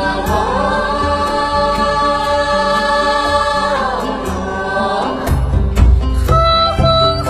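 Chinese song with backing music: a long held, choir-like sung note that ends about four seconds in. A heavier bass then comes in, and a new ornamented melody line starts near the end.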